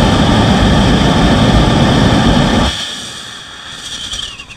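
Small liquid-propellant rocket engine with a converging-diverging bell nozzle firing at about 100 kg of thrust: a loud, steady roar that cuts off abruptly nearly three seconds in at shutdown, then a faint hiss fading out.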